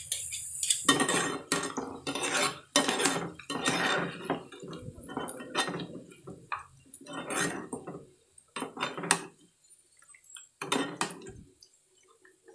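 Metal kitchen utensils clattering and scraping against a stainless-steel mixing bowl and a frying pan. The clinks come irregularly and thin out after about nine seconds, with one more clatter near the end.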